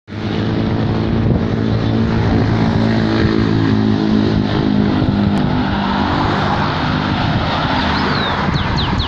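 A motor vehicle engine running with a steady low hum for about five seconds, then giving way to a rushing noise of traffic and wind. A few short high squeaks come near the end.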